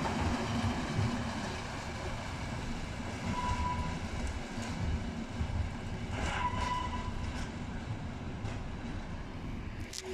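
Freight train of open wagons rolling past and drawing away: a steady wheel rumble with clatter from the rails, easing slightly as it goes. Two short high-pitched tones come about three and a half and six and a half seconds in.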